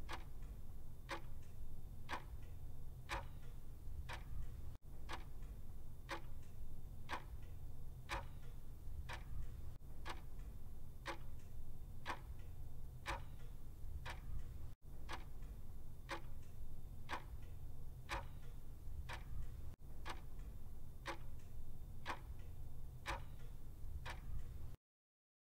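Clock ticking steadily, about one tick a second, over a low hum: a quiz countdown timer. The ticking drops out briefly about every five seconds and stops abruptly near the end.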